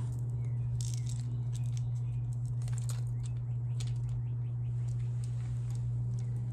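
A steady low hum throughout, with faint scattered clicks and light jangling as a metal necklace chain and its clasp are handled and laid out to be measured.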